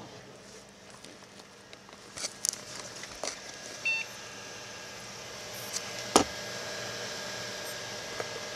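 A water-cooled desktop computer running: a steady whir of cooling fans with a faint whine, a little louder after about four seconds. Scattered clicks and knocks come through it, with a short high beep just before four seconds and a sharp click about six seconds in.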